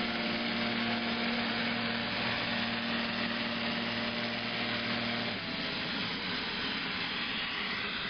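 Neato XV-11 robot vacuum cleaner running as it drives: a steady motor hum over a hiss of airflow. The hum stops about five seconds in, and the hiss carries on.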